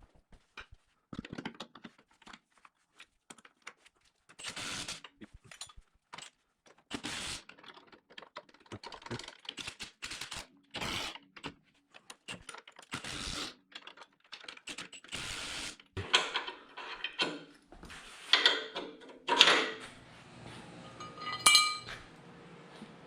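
Steel brackets and bolts being handled and fitted with hand tools: scattered clicks and knocks, several short scraping or rattling bursts, and ringing metal clinks near the end.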